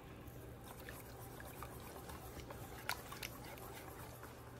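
Faint, scattered clicks and wet sloshing of a wire balloon whisk mixing thin pandan and coconut milk crepe batter in a stainless steel bowl, with a couple of sharper ticks of the wires against the bowl about three seconds in.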